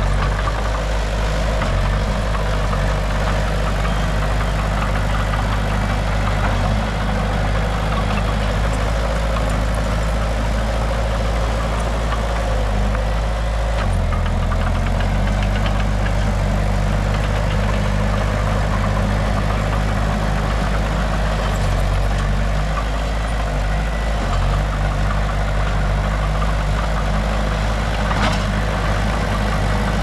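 Diesel engines of a small crawler bulldozer and a tracked excavator running steadily while the dozer pushes dirt, with small shifts in the engine note. A short clank near the end.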